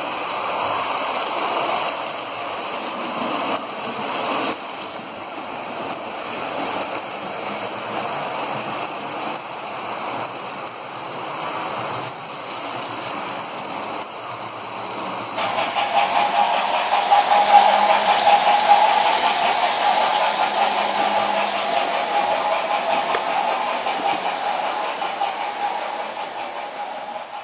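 Model trains running on the layout: a steady whirring rumble of the motors and wheels on the track. About halfway through it switches abruptly to a louder, steady hum with a held mid-pitched tone.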